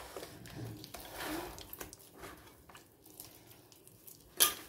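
A bare hand squishing and mashing bananas into a thick tamarind-jaggery pulp in a metal pot, with soft wet squelches. One sharp click near the end.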